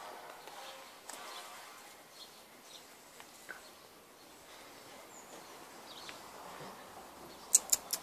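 Quiet outdoor background with a few faint bird chirps. Near the end come several sharp clicks in quick succession, the loudest sounds here.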